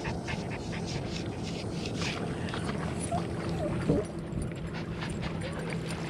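Small scruffy terrier panting in quick irregular breaths, with a few short whines about halfway through, eager to get into the water.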